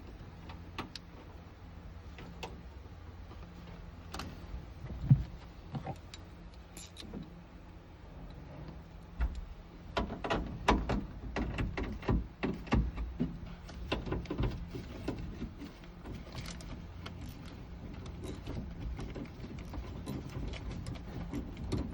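Hands-on work inside a car door during a power window repair: scattered clicks, knocks and rattles of parts and tools, with one sharp knock about five seconds in and a busy stretch of knocking from about ten to sixteen seconds, over a steady low hum.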